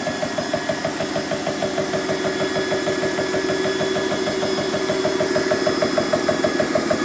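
BSA high-pressure air compressor running steadily with a fast, even pumping beat while it fills through the fill probe, the pressure climbing toward 100 bar.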